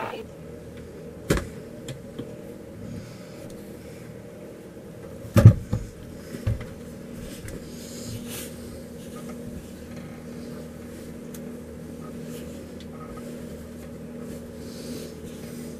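A few sharp knocks and thumps, the loudest about five seconds in, over a steady mechanical hum.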